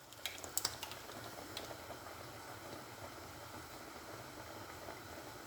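A spoon clinks lightly a few times against a bowl of olives, then olive oil is poured over them with a faint steady trickling hiss.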